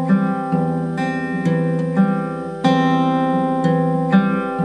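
Steel-string acoustic guitar played fingerstyle in a slow Travis picking pattern on a C chord with E in the bass: the thumb picks the bass while a finger plucks the B string, pinching notes in opposite directions, about two notes a second.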